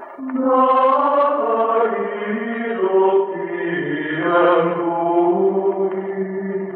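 Chanting: long held sung notes that step gradually lower in pitch.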